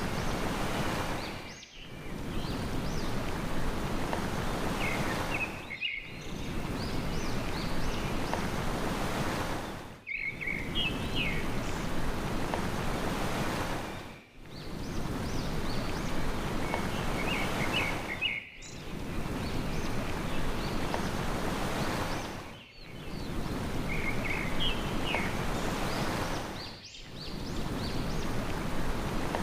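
Sea waves washing steadily, with small birds chirping in short bursts a few times. The sound drops out briefly about every four seconds, as if a short recording is looped.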